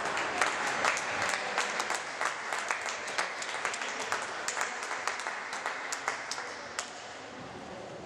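Crowd applauding, quick irregular claps that thin out and die away about seven seconds in.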